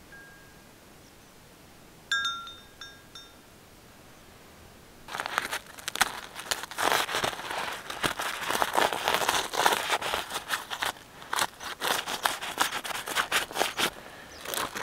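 Fingers scratching and picking frozen ice crystals off the nylon tent fly, a dense crackling and crinkling that starts about five seconds in; the water on the tent froze overnight. Shortly before, a bird gives a few short high chirps.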